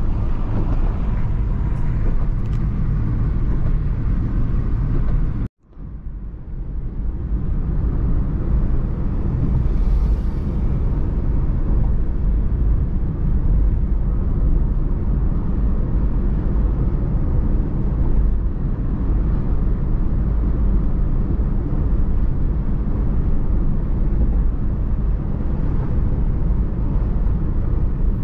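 Steady low rumble of tyre and engine noise inside the cabin of a moving car. It drops out suddenly about five and a half seconds in, then fades back up and carries on steadily.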